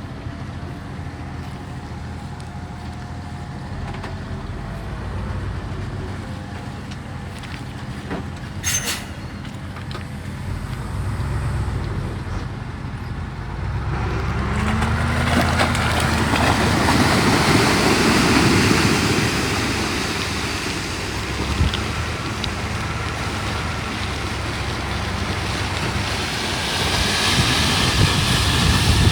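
Diesel engines of heavy earthmoving machinery running steadily. About halfway through, the sound grows louder, with a broad rushing noise and a brief rising tone, as if working under load. There is one sharp knock about nine seconds in.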